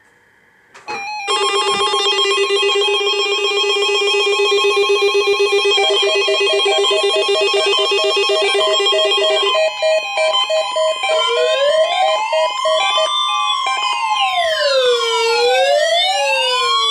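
Several NOAA weather radios sounding their alarms at once for the weekly tone-alarm test. About a second in, a loud mix of rapid electronic beeping at several pitches starts over a steady high tone. About halfway through the beeping stops and overlapping electronic sirens wail, sweeping up and down.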